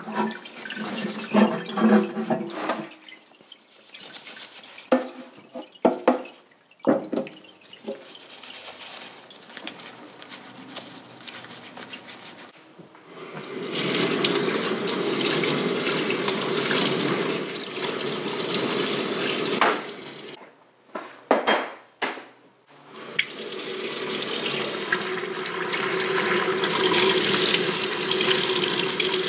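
A brush scrubbing and splashing a part in a parts-washer tray, irregular and stop-start. Then a kitchen tap runs steadily into a stainless steel sink, water pouring over a part held in the hands under the stream. The flow is broken off for a few seconds about two-thirds through.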